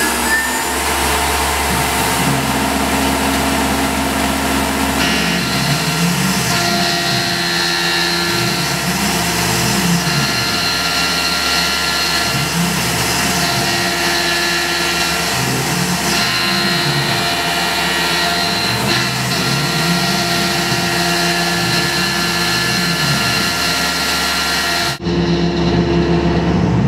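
Tormach PCNC 1100 CNC mill machining an aluminium block with a small end mill: a steady spindle and cutting noise, with whines that repeatedly rise and fall in pitch as the axis motors speed up and slow down along the toolpath. Near the end the sound changes abruptly and the high hiss drops away.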